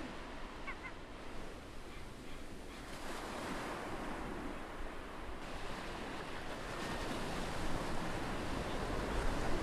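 Ocean surf washing onto a beach, a steady rush that swells about three seconds in and again near the end, with a faint seagull call in the first second.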